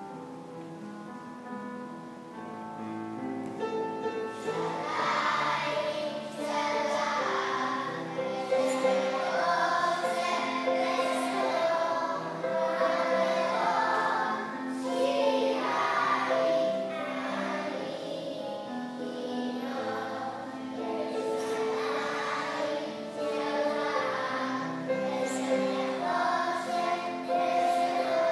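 A group of young children singing together to an instrumental accompaniment. The accompaniment plays alone for the first few seconds, and the voices come in about four seconds in.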